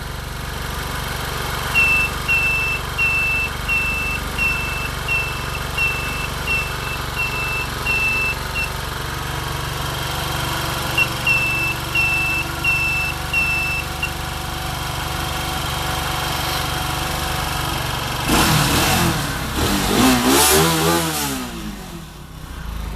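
BEMI quad ATV engine running steadily. A short high beep repeats about every 0.7 s, in two runs. Near the end the engine gets louder and its note falls and then rises again.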